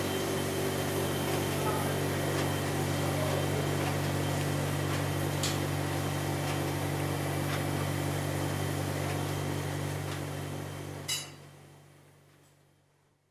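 Ship's engines running with a steady low hum, then winding down and dying away from about ten seconds in. There is a sharp click at about eleven seconds as they stop.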